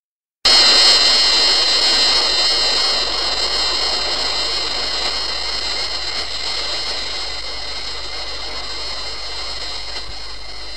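Created sound effect for the kaiju Mogu: a sustained whine made of several steady high tones over a noisy rush. It starts abruptly about half a second in and slowly fades.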